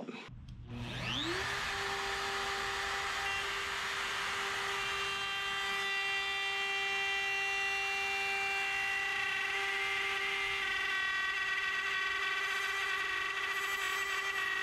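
Wood router spinning up with a rising whine about a second in, then running at a steady high whine as it routes a guitar body blank to a template. The hard curly maple layer makes the cut go slowly and a little jerky.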